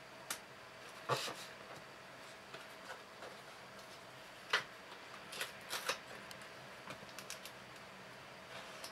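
Hands handling a plastic shipping-document pouch on a cardboard box: scattered light taps, clicks and crinkles, the sharpest about four and a half seconds in.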